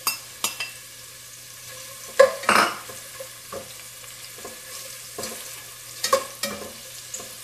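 Sliced onions frying in olive oil in a stainless steel pot with a low sizzle, while a slotted spatula stirs them, knocking and scraping against the pot many times. The loudest clatter comes about two seconds in.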